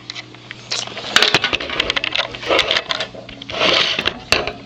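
Computer parts being handled on a table: a series of sharp clicks and knocks mixed with short bursts of scraping and rustling.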